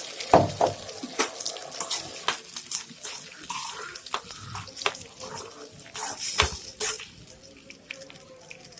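Spoon stirring freshly ground coconut chutney in a hot kadai, a wet sloshing broken by irregular scrapes and clinks of the spoon against the pan.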